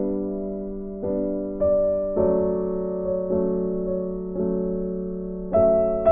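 Background piano music: slow, gentle notes and chords, each struck and left to ring out, with a louder chord about five and a half seconds in.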